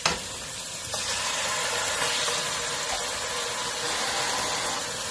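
Kitchen tap running water into a cup, a steady rush that starts about a second in after a click.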